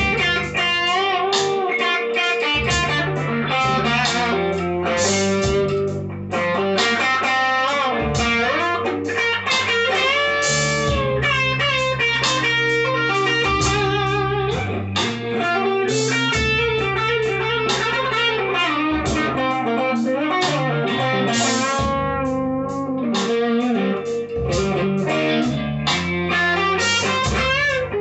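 Grote Les Paul-style electric guitar played on its bridge pickup: a continuous run of picked notes and phrases, with a few bent notes.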